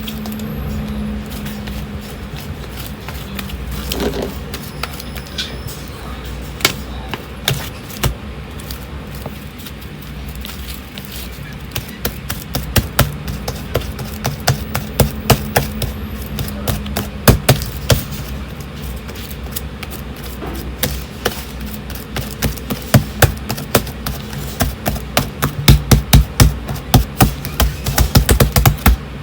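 Fluffy slime being squeezed and worked by hand, with sharp clicking pops of trapped air bubbles that come thicker and louder in the second half.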